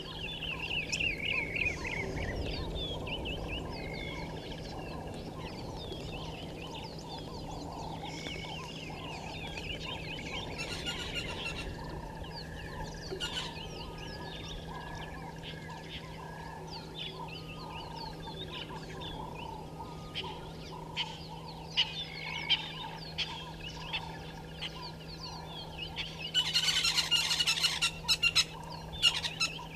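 Wild birds calling and chirping in the bushveld, many short calls overlapping, over a steady low hum. Near the end a loud, harsh noisy burst lasts about two seconds.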